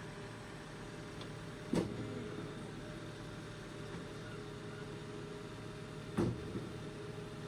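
An engine idling steadily, with two sharp knocks, one about two seconds in and one near the end.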